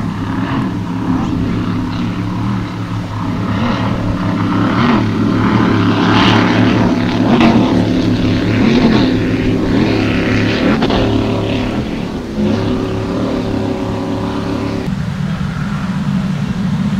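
Offshore racing powerboat's engines running at high speed as it passes close by, loudest midway. Near the end the sound changes suddenly to a lower, steady drone of boats farther out.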